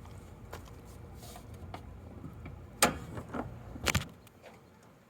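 Two sharp knocks about a second apart, the second one doubled, with a few faint ticks over a low steady hum.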